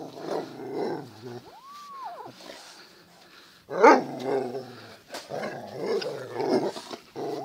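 A dog growling in rough play with a cat, its growls rising and falling in short bouts. About two seconds in the cat gives one arched meow, and near four seconds the dog lets out a single loud, sharp bark.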